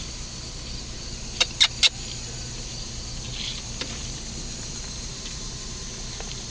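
Vehicle engine idling with a steady low hum; about a second and a half in, three quick sharp clicks follow one another within half a second, and a brief faint hiss comes a little past three seconds.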